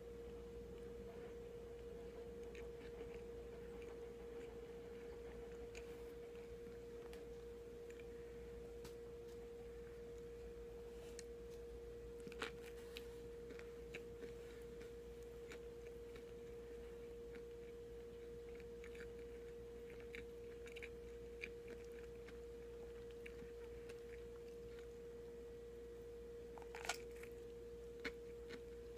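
Quiet eating sounds from a sandwich: scattered soft bites, mouth clicks and chewing on soft bread, one sharper click near the end, over a steady faint hum at one pitch.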